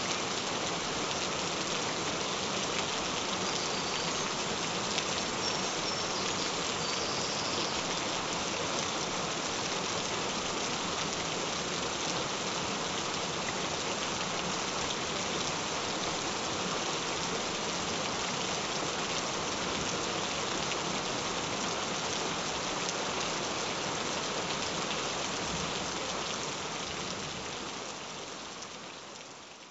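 Steady rain falling, an even hiss and patter with no thunder, which fades out over the last few seconds.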